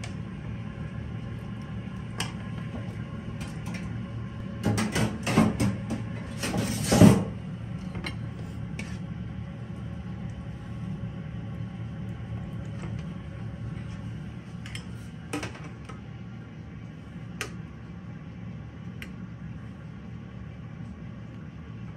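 A metal spoon clattering and scraping against a frying pan and a metal tray while filling is scooped out, with a burst of clatters about five to seven seconds in and a few single knocks later, over a steady low hum.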